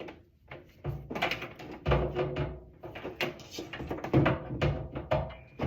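Irregular knocks, clunks and scraping from handling a microwave's metal casing and parts while it is being taken apart.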